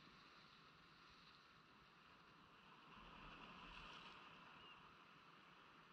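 Faint, steady wash of surf breaking against a rock jetty, swelling slightly about three seconds in.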